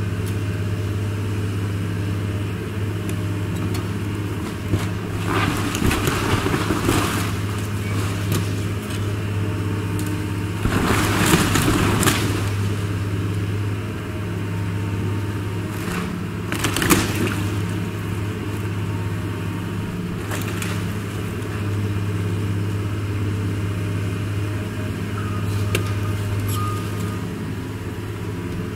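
Tracked hydraulic excavator's diesel engine running steadily while it tears into a wooden barn, with bursts of cracking and crashing wood, the loudest about a third of the way in and a shorter one a little past halfway.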